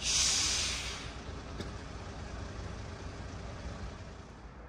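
Low, steady rumble of idling vehicle engines, opened by a loud hiss that fades over about a second.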